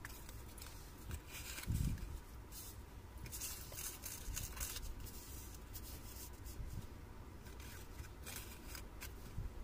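Paper and thin cardboard rustling and rubbing as small packaging pieces are handled and set down on a table, in scattered short bursts, with a dull thump about two seconds in.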